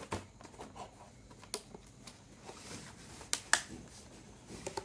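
Cardboard product box being opened and handled by hand: scattered light clicks and scrapes of the lid and flaps, with the sharpest pair of knocks about three and a half seconds in.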